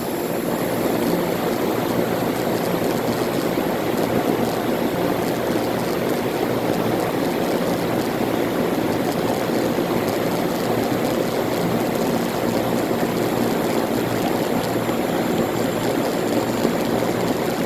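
1993 Heil 5-ton central air conditioner condenser unit running steadily just after start-up: a steady compressor hum under the even rush of its condenser fan, whose blade is mounted the wrong way round.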